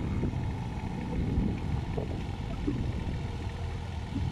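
Kubota mini excavator's diesel engine running steadily with a low rumble.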